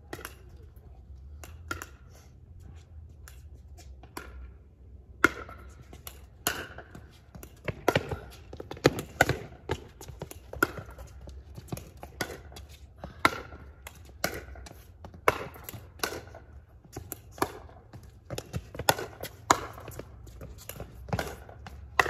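Pickleball rally: sharp pops of paddles striking a plastic pickleball and of the ball bouncing on the hard court. A few scattered taps come first, then from about five seconds in a quick, irregular run of loud hits, one or two a second.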